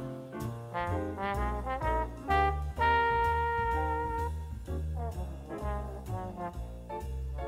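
Background music: a jazzy tune with a brass lead over a bass line that moves in steady steps, with one long held note about three seconds in.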